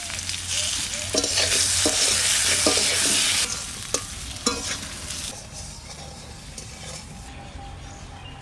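Potato wedges sizzling in hot mustard oil in a wok while a spatula stirs them, knocking and scraping against the pan several times. The sizzle is loudest from about a second in, then dies down after a few seconds.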